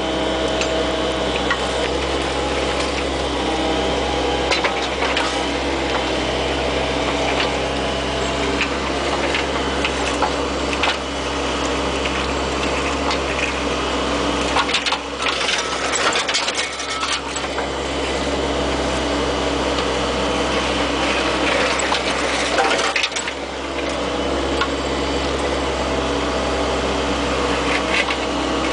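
Bobcat 430 ZHS mini excavator's diesel engine running steadily, with scattered knocks and clicks. The engine note dips briefly twice, about halfway through and again near the three-quarter mark.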